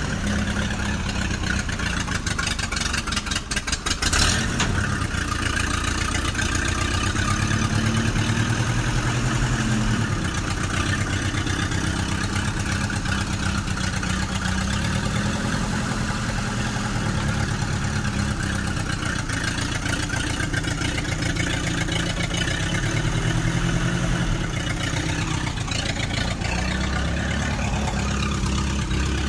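Tractor engine running steadily, its speed rising and falling a few times, with a short burst of clatter about four seconds in.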